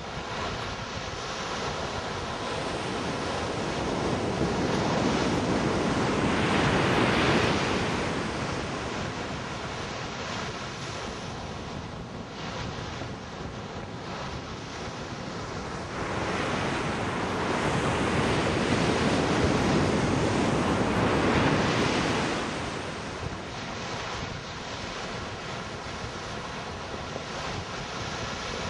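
Sea surf washing onto a beach, with two long swells of breaking waves. The first peaks about seven seconds in, and the second lasts from about sixteen to twenty-two seconds. Wind is on the microphone throughout.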